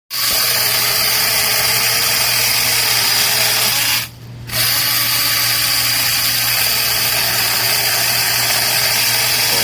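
Small cordless electric chainsaw with a 21V battery-powered motor running steadily at full speed. It cuts out briefly about four seconds in and starts again.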